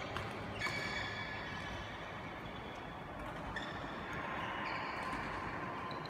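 Steady background noise of a large indoor sports hall between badminton rallies, with one light tap about half a second in and a few faint high tones.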